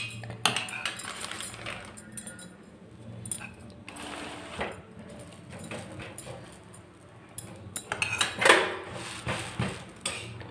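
Metal spoon scraping and clinking against an iron tawa while ghee is spread on the griddle and over a slice of bread, with scattered clicks and a louder cluster of scrapes about eight seconds in.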